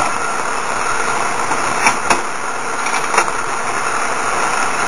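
Steady hiss of storm rain falling, with three light knocks in the middle.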